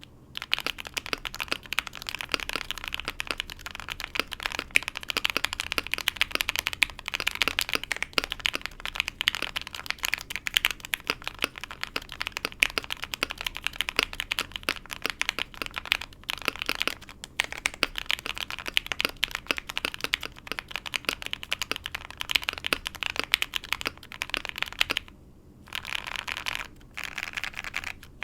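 Typing on a custom mechanical keyboard: a Vega65 case with an aluminium plate, lubed Popu switches and NicePBT PBT keycaps, sounding as a steady stream of fast keystrokes. The typing stops briefly a few times, with the longest pause about 25 seconds in.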